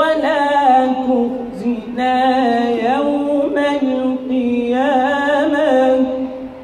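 A young man's voice reciting the Quran in a melodic, drawn-out style, holding long notes with ornamented pitch turns. It breaks off briefly twice and stops at the end, and it is amplified through a handheld microphone.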